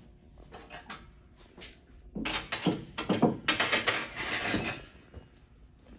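Tuning hammer turning the tuning pin of a Steinway L grand piano to pull a newly installed bass string up to tension. There are a few light ticks, then a series of louder bursts of creaking and scraping from the wire and pin, with the piano's strings ringing, between about two and five seconds in.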